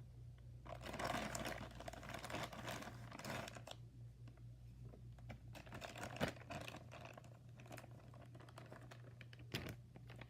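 Rustling and scattered light clicks and taps as slime ingredients and their containers are handled and added, over a steady low hum.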